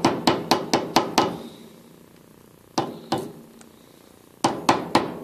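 A plastic-faced mallet tapping masking tape against the cast-iron edge of an Atlas quick-change gearbox housing, cutting the tape to the casting's outline the way a gasket is cut. The taps come in three quick runs: about six, then two, then about five near the end.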